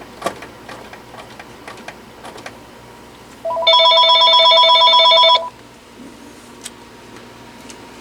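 Panasonic KX-TG6841 DECT 6.0 cordless phone ringing for an incoming call. One electronic ring of about two seconds starts about three and a half seconds in, loud and made of several steady tones, after a few faint clicks.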